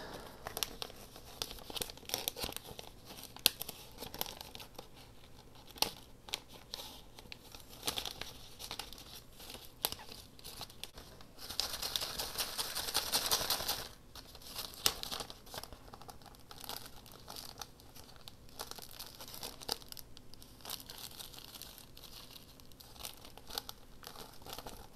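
Paper craft pieces being handled: scattered rustling, crinkling and small taps, with a denser scratchy rustle about halfway through that lasts about two seconds.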